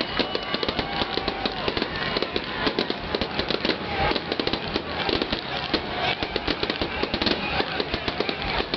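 Fireworks crackling and popping in rapid, continuous succession, many sharp reports a second with no pause.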